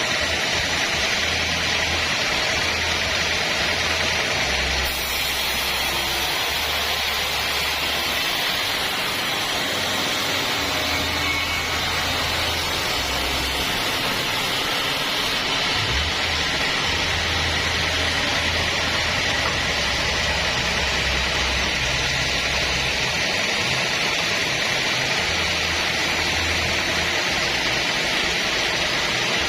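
Sawmill band saw running with a loud, steady noise.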